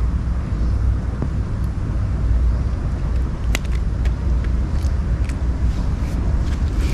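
Wind rumbling on the microphone, steady, with a few faint clicks in the second half.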